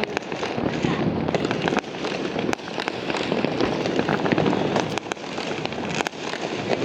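Fireworks going off in a dense, continuous barrage: many sharp, overlapping bangs and crackles over a steady rumble.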